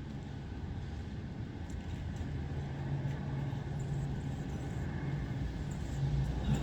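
Low steady rumble of a car engine, growing louder after a couple of seconds, with a few faint clicks.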